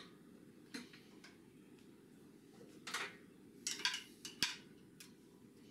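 Metal clicks and clinks from a lathe's three-jaw chuck being worked with a chuck key to clamp a thin metal rod in its jaws. There are a couple of single taps, then a quick run of clinks about three to four and a half seconds in.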